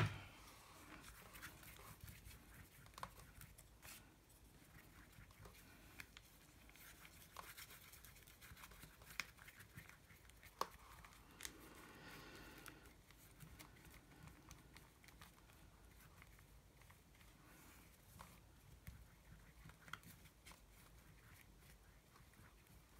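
Near silence, with faint scattered taps and a soft rustling as a brush spreads Mod Podge over a paper collage page.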